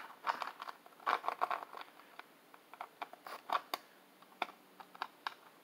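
Hands handling a small circuit board and plastic parts on a workbench: irregular short scratchy rattles and several sharp clicks.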